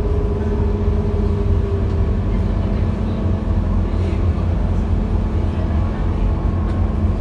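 Steady low rumble of a Scania K230UB city bus's diesel engine and running gear, heard from inside the passenger cabin. A faint steady whine sits above it and fades out about two seconds in.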